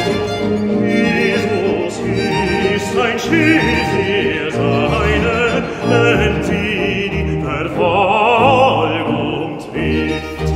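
Bass voice singing a Baroque aria with wide vibrato, accompanied by violins and a low continuo line. Near the end the voice stops and the violins play on.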